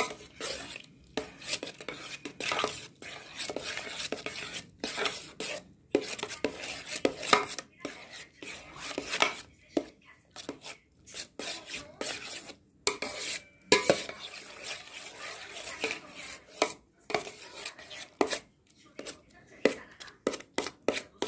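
Spoon churning and scraping through butter and buttermilk in a stainless steel bowl, clinking against the sides in a quick, irregular run of strokes: cream being worked by hand until the butter separates from the buttermilk.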